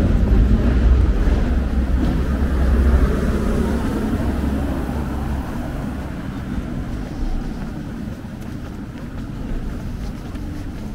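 Road traffic: a car driving along the street, its tyre and engine noise with a low rumble, loudest in the first few seconds and then fading away.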